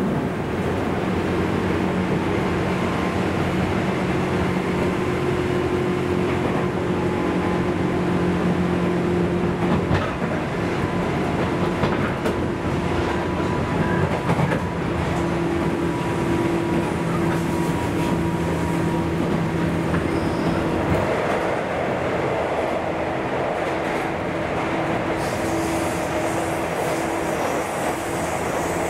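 Running noise inside the motor car of a JNR 201 series armature-chopper-controlled electric train: steady humming tones over the rumble of wheels on rail, with a few rail-joint clicks. About twenty seconds in, the sound changes as the train enters a tunnel, the low hum fading and a hiss rising.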